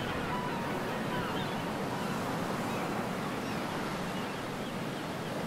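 Ocean surf: a steady, even rush of breaking waves.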